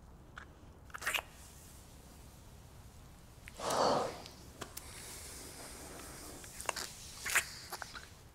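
Two men kissing: soft wet lip smacks and clicks with breathing, and a louder breath about four seconds in.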